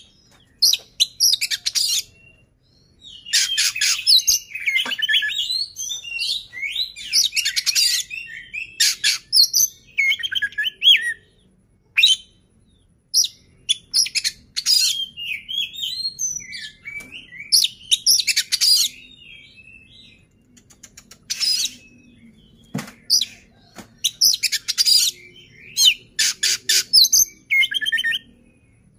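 Oriental magpie-robin (kacer) singing: phrases of fast trills, chattering notes and whistled slurs, broken by short pauses of a second or two.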